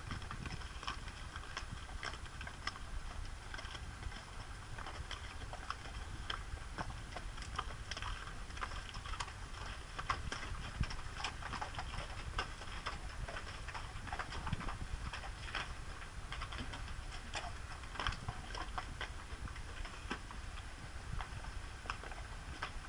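Horses' hooves clopping and clicking on a rocky trail at a walk, in an uneven run of sharp strikes, over a steady low rumble.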